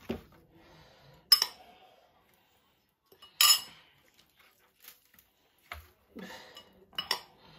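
Kitchenware knocking and clinking: a spoon and bowl and a dark baking tray knock together as spice-coated fish is turned over in the tray. There is a sharp clink about a second in, a louder clatter about three and a half seconds in, and a few lighter clinks near the end.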